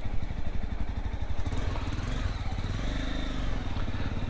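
Motorcycle engine idling: a steady low rumble of rapid, even firing pulses that picks up slightly around the middle.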